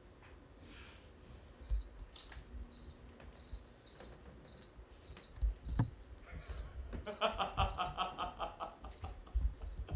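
Recorded cricket chirping played through the theatre's sound system: short, high chirps repeating about every half second. A lower, denser pulsing sound joins about seven seconds in.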